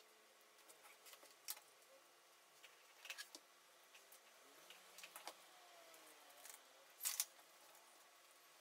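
Faint, scattered clicks and light knocks as a MacBook Pro aluminium display assembly is lifted and set back down by hand; the loudest, a quick double knock, comes about seven seconds in.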